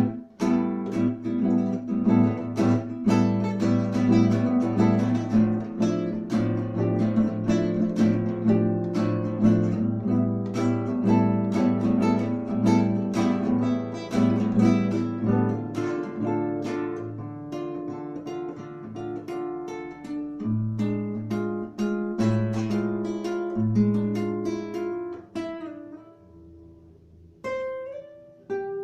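Acoustic guitar playing a run of plucked and strummed notes, thinning out near the end to a few last ringing notes.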